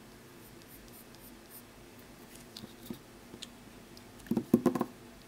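Graphite pencil scratching faintly on paper, with a few small clicks, then a quick cluster of loud knocks about four seconds in as something is handled.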